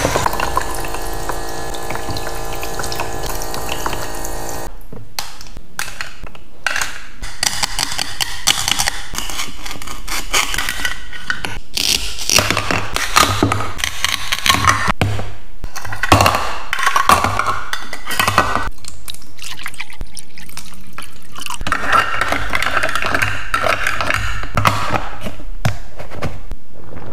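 A toy sink's little pump runs a thin stream of water from its plastic faucet, a steady hum with splashing that cuts off about five seconds in. Then come plastic clicks and knocks of toy-kitchen pieces, and a toy knife cutting apart a plastic tomato whose halves are held by hook-and-loop. Near the end a plastic pot and lid are handled.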